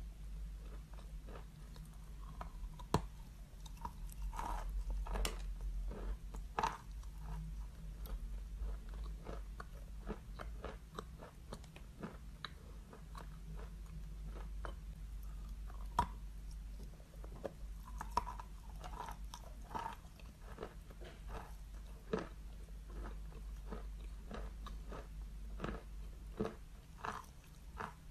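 A mouthful of chalk chewed close to the microphone: irregular crisp crunches, with a few sharper cracks standing out, about three seconds in and again about halfway through.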